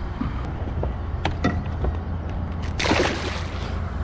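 Water sloshing against a small fishing boat over a steady low wind rumble, with a few light knocks and a short splash about three seconds in.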